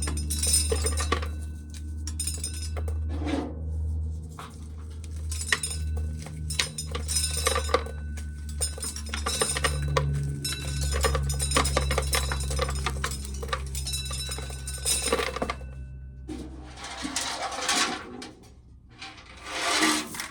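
Corn sheller running with a steady low hum while dry corn kernels rattle and clink against metal. The hum stops about sixteen seconds in, followed by a few short rustling scrapes.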